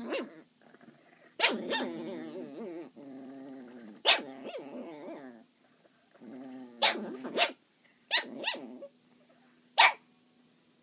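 Two dogs play-fighting in a wire crate: long stretches of low play-growling that stop and start, broken by about eight sharp barks, the last near the end.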